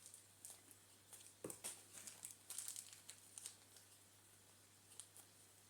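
Faint crinkling and rustling with scattered small clicks, as of hands handling Play-Doh and its packaging, and one soft knock about one and a half seconds in.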